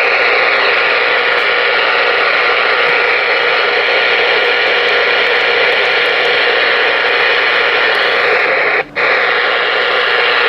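Loud, steady hiss of receiver static from the Ranger RCI-2970N4 radio's speaker, cutting out once for a split second about nine seconds in.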